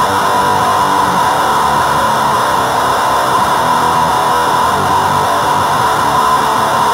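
Heavily distorted electric guitar played through effects pedals, including a Boss HM-2 distortion, and out of a speaker cabinet. It is a loud, dense, harsh wash of sound with a steady buzzing edge and no pauses.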